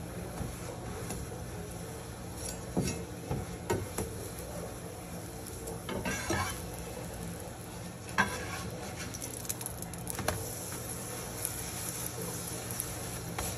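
A metal slotted spatula scrapes and taps against a frying pan as a chapati is pressed and turned in oil, with a light sizzle. There are several separate scrapes and clinks, the sharpest about 8 seconds in, over a steady low hum.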